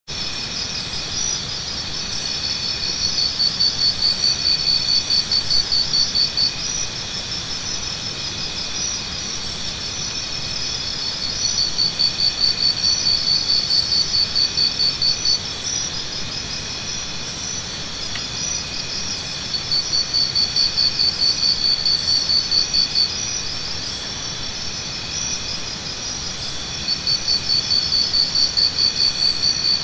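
Chorus of insects calling: a steady high pulsing chirr, joined about every eight seconds by a louder phrase of rapid pulses, about four a second, lasting three to four seconds each time.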